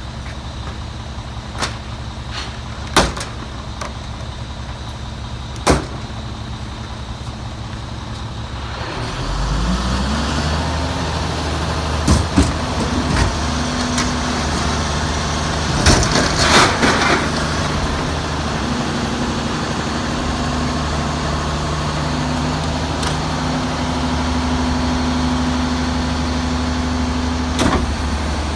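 Mack MR garbage truck's diesel engine idling, then speeding up about nine seconds in and holding a higher steady running note as the Leach rear loader's hydraulics winch a dumpster up and tip it into the hopper. Sharp metal clanks early on from the dumpster being hooked up, and loud bangs around twelve and sixteen seconds in as the dumpster lifts and its contents spill into the hopper.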